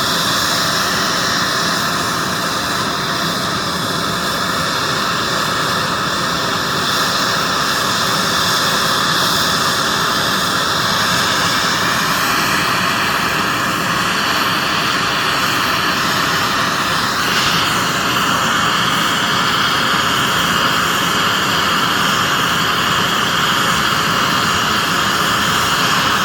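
A gas torch flame running with a steady roaring hiss as it heats gold in a red-hot mold to melt it. Its tone shifts slightly about 11 and again about 17 seconds in.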